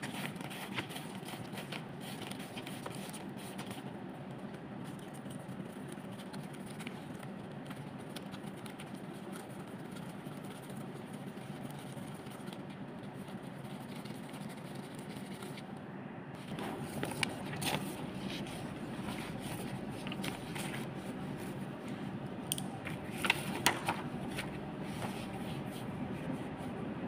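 Printed sticker sheets being handled and separated by hand: paper rustling and scraping with scattered sharp clicks, busiest about two thirds of the way in and near the end, over a steady background noise.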